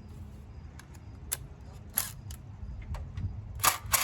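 Hand tools being handled, a few separate sharp metallic clicks and clinks, with a short rattle at the very end, over a steady low hum.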